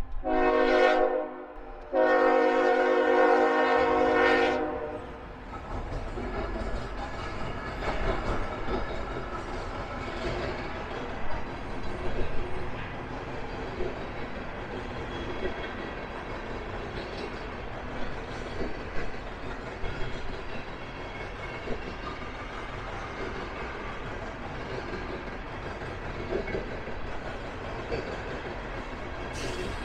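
Locomotive air horn sounding a short blast, then a longer one ending about four and a half seconds in, followed by a steady train rumble with scattered sharp knocks from wheels on rail as the train passes.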